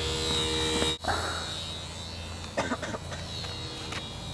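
Small electric motor and propellers of a micro RC plane running with a steady buzzing whine. About a second in the sound cuts off and goes quieter and noisier, with a few short clicks.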